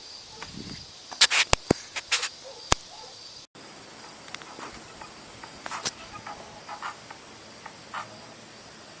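Scattered sharp clicks and small knocks, most of them in the first three seconds, over a steady faint high hiss with a thin high whine. The sound drops out for an instant about three and a half seconds in.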